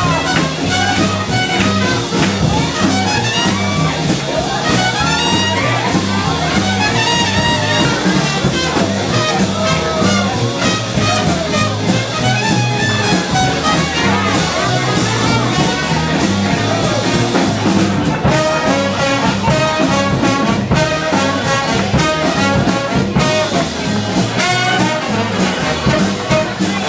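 Swing band playing an instrumental break, its brass section of trumpets and trombones carrying the tune over a steady beat.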